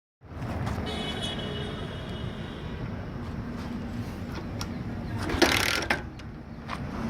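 Bajaj Pulsar 150's single-cylinder engine running at idle through a homemade modified exhaust, a steady low rumble. A brief louder rushing noise comes about five and a half seconds in.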